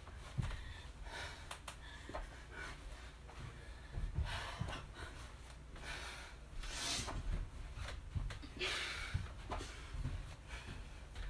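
A woman breathing hard through sit-ups, with loud noisy exhales about 4, 7 and 9 seconds in and lighter breaths between, plus a few soft low thumps.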